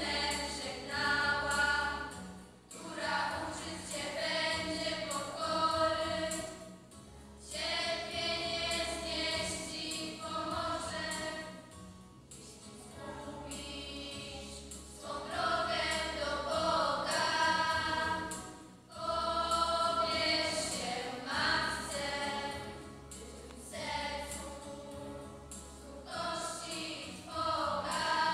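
Girls' school choir singing a Polish Lenten song, in phrases a few seconds long with brief pauses between them.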